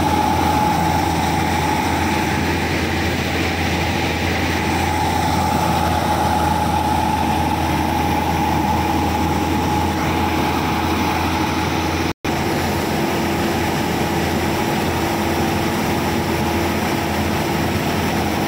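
Dewan Crop Tiger 930 combine harvester, with its Ashok Leyland six-cylinder diesel engine, running steadily while its auger unloads wheat into a trolley. It makes a constant heavy hum with a steady whine over it, which breaks off for an instant about twelve seconds in.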